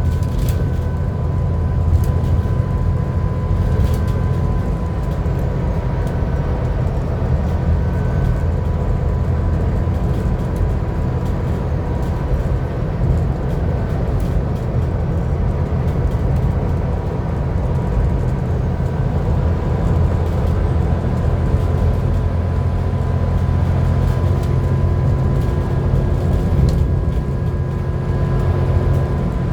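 Alexander Dennis Enviro400 double-decker bus running under way: a heavy, even engine drone with a steady high turbocharger whine layered over it.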